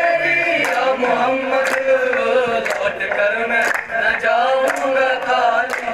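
Young male voices singing a qawwali, a lead voice with a chorus, accompanied only by hand claps about once a second.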